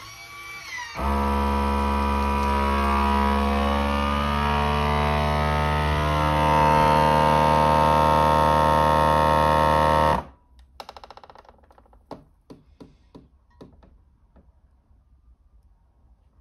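FoodSaver vacuum sealer's pump starting and running with a loud, steady hum as it draws the air out of the bag. It grows a little louder partway through as the bag pulls tight, then cuts off suddenly after about nine seconds. A few faint clicks follow.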